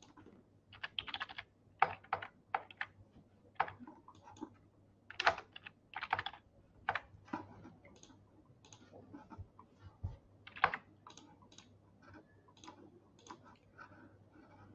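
Faint typing on a computer keyboard: irregular keystrokes in short runs with pauses between, over a faint steady low hum.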